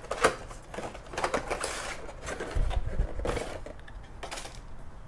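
A Rode microphone's cardboard box and clear plastic tray being handled and pulled apart: irregular rustling and scraping of card and plastic, with a sharp click just after the start and a low thud near the middle.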